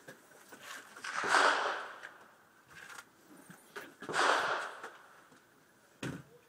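Two rifle shots from an AR-15-style rifle, about three seconds apart, each ringing out for most of a second. A short light click comes near the end.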